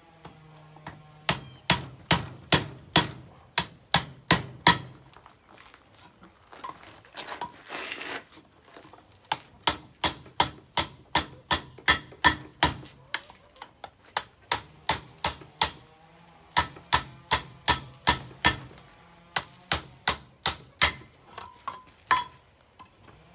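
Hand hammer striking a red-hot steel bar on an anvil, in runs of sharp blows about two to three a second with short pauses between runs.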